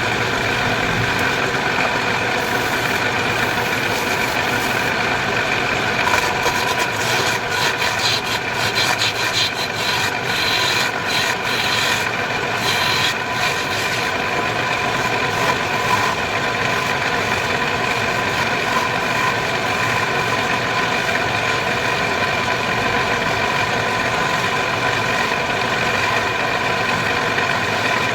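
Wood lathe running steadily with a whine from its motor, and from about six to fourteen seconds in a turning tool scraping and cutting the spinning wood.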